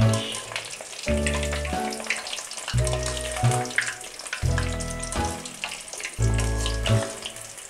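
Besan-coated peanuts deep-frying in hot oil on high flame, a steady crackling sizzle as a wire skimmer stirs them. Background music runs over it, with a low bass note about every one and a half seconds.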